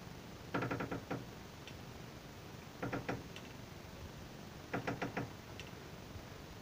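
An animal making three short bursts of quick, pitched clucking calls, about half a second each, spaced a couple of seconds apart.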